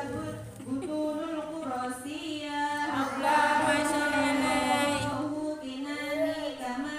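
A woman chanting a Quran recitation in Arabic, in long melodic held notes that bend slowly in pitch, a little louder about three seconds in.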